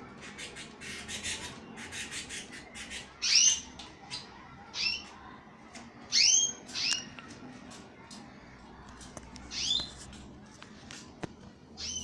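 Canaries bathing in a plastic bird bath: a quick run of splashing and fluttering spatters in the first few seconds, then about six sharp, separate chirp calls, the loudest two coming about a third and a half of the way through.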